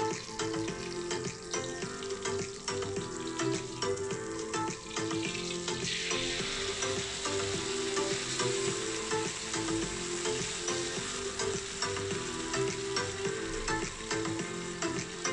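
Hot oil sizzling in a wok around lemongrass and kaffir lime leaves. About six seconds in, the sizzle gets louder and hissier as sambal padang paste is poured into the hot oil, and it keeps frying with small crackles.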